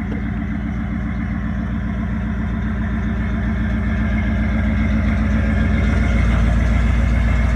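Ford Bronco's V8 idling steadily through its exhaust, a low even rumble that grows somewhat louder over the second half.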